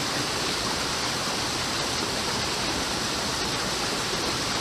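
Creek water running with a steady rushing noise.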